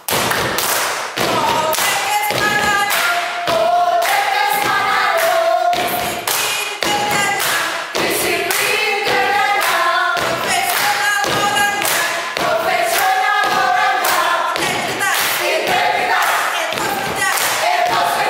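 A group of voices singing a yel-yel, an Indonesian group cheer song, together over a steady thumping beat.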